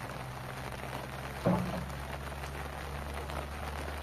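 Steady rain hiss over a low, steady hum, with a single thump about a second and a half in.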